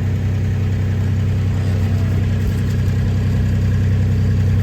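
A vehicle engine idling steadily, a low even drone.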